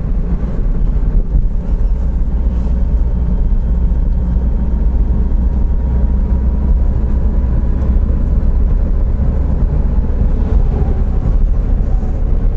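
A 2019 Honda S660 driving at a steady pace: its 660 cc turbocharged three-cylinder engine runs under a continuous low rumble of tyres and road.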